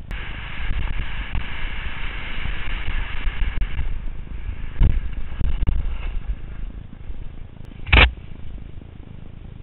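Wind buffeting a helmet-mounted GoPro as a skier descends, with a steady low rumble. There is a thump about five seconds in and a sharper, louder one about eight seconds in.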